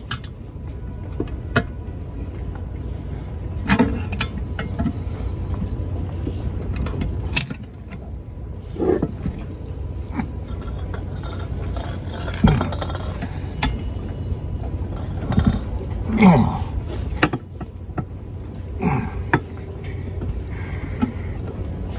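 Wrench fitted with a cheater-bar pipe clinking and knocking against metal while a lock nut is cranked tight on an anchor bolt, in scattered irregular clanks over a steady low hum.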